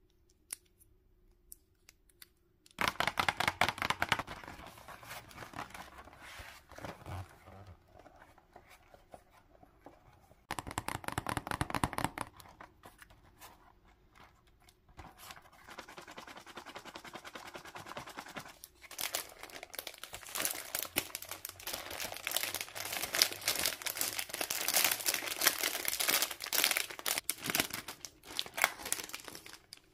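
Clear plastic packaging crinkling and crackling as fingers handle it, starting about three seconds in and coming in bursts of rapid crackles. The crackling is densest near the end, where a sketchbook sealed in cellophane wrap is being turned over.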